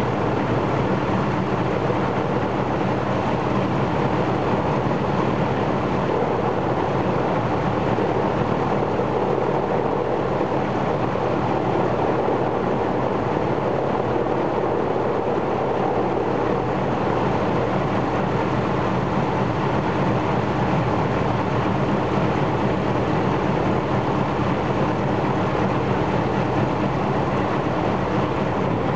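An Ilyushin Il-14's Shvetsov ASh-82T fourteen-cylinder, two-row radial piston engine and its propeller run steadily and loudly during a ground run, with the engine cowlings removed.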